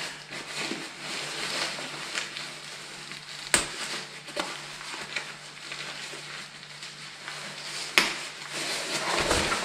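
Rustling and crinkling of a textile motorcycle jacket's polyester fabric being handled, with two sharp clicks about four seconds apart.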